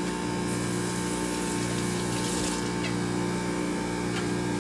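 Electric juicer's motor running steadily with an even hum, with a brief faint handling noise from about half a second in.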